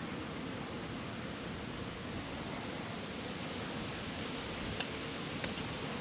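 Steady wind noise rushing over the microphone, with two faint clicks near the end as the battery-powered oxalic acid vaporizer at the hive entrance is handled.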